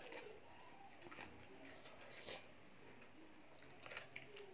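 Faint, soft wet squishing and small clicks of cooked rice and urad dal being mixed and scooped by hand on a steel plate, with quiet chewing.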